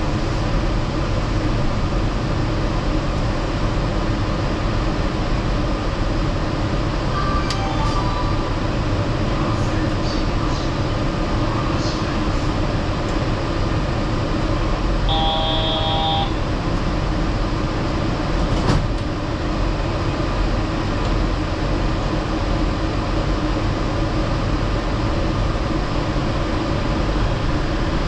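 Yurikamome Line rubber-tyred automated train running along its guideway: a steady rumble of tyres and drive. About halfway through, a brief tone of several pitches lasts about a second, and a single sharp click comes a few seconds later.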